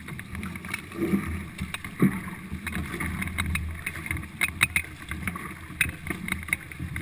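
Paddles of a four-person stock racing canoe pulling hard and splashing at a fast stroke rate, with water rushing along the hull. A scatter of sharp knocks and splashes, several close together just past the middle.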